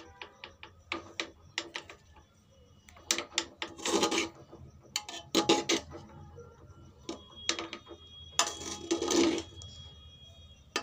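Metal spoon scraping and clinking against the inside of a pressure cooker while stirring and fluffing cooked basmati rice. It is a string of sharp clicks, with a few longer scrapes.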